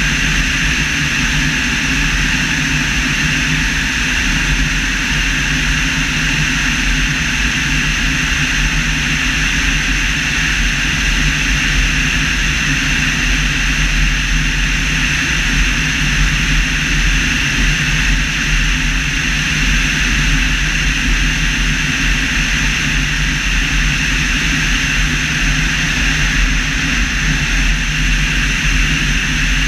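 Evektor EV-97 Eurostar light aircraft in flight: a steady rush of airflow with a constant low hum, heard from a camera mounted on the airframe outside the cockpit.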